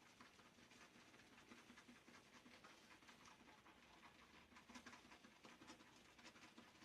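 Shaving brush whisking Williams Mug Soap into a lather in a scuttle: a faint, quick wet patter and crackle of brush strokes through big-bubbled, watery lather.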